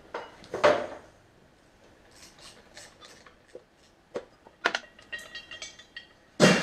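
Hand tools and metal parts clinking and scraping as they are handled, with a loud short scraping clatter under a second in and another near the end.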